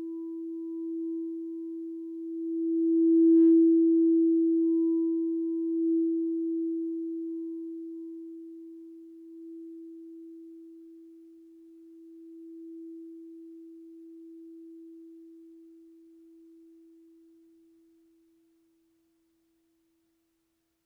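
No-input mixer feedback drone: a single steady pure tone with a faint higher tone above it. It swells briefly about three seconds in, then slowly fades out to silence near the end.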